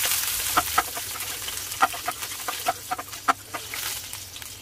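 Sliced onions and a bay leaf frying in hot oil in an aluminium wok: a sizzle that is strongest as they go in and then settles lower. Short sharp pops come every half second or so over the sizzle.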